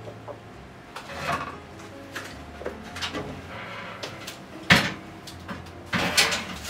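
Metal wire oven rack loaded with chicken skewers clattering as it is handled and slid into an oven: a series of separate knocks and clanks, the sharpest about two-thirds of the way through.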